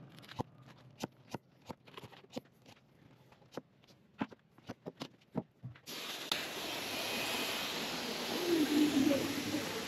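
A few light taps and clicks, then about six seconds in a garden hose's pistol-grip spray nozzle opens: a steady hiss of water spraying onto a fish-cleaning table.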